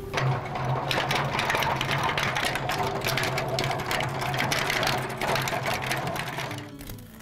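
Hand-cranked stainless-steel honey extractor spinning frames of comb: a steady run of gear whirring and rattling over a low hum, dying away near the end.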